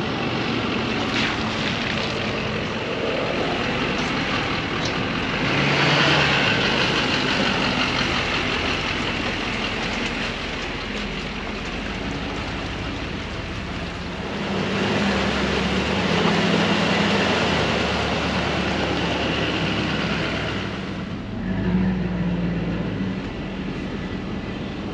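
Chevrolet Silverado 2500 pickup's engine running steadily as the truck crawls through at low speed. It grows louder twice, about a fifth of the way in and again for a stretch after halfway.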